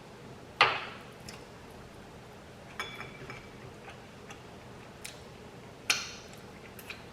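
A few sharp clicks and light clinks while eating at a table, about four in all, the loudest under a second in and just before six seconds in, two of them with a brief ring like a glass or dish being touched.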